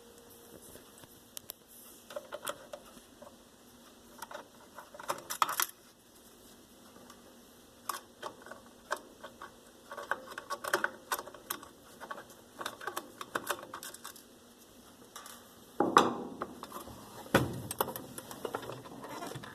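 Screwdriver backing out the bottom screws of a typewriter: scattered small metallic clicks and clinks of the screwdriver, screws and typewriter frame being handled, with louder clusters about five seconds in and near the end.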